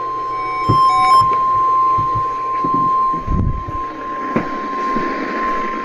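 NOAA Weather Radio warning alarm tone, the steady single 1050 Hz tone sent during the required weekly test, heard over a radio receiver with static hiss that grows in the second half. A quick run of short beeps sounds near the start, and a few low thumps come in the middle.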